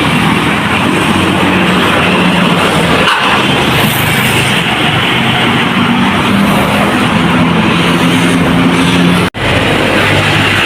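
Heavy road traffic passing close by, a large engine's low hum over loud tyre and road noise. The sound cuts out for an instant about nine seconds in.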